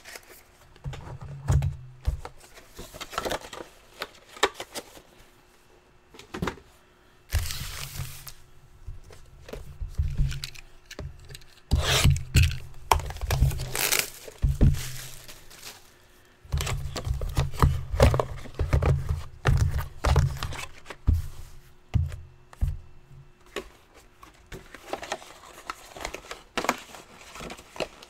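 Trading-card box packaging being torn open and crinkled by hand, with dull knocks and thuds as the boxes are handled on the table.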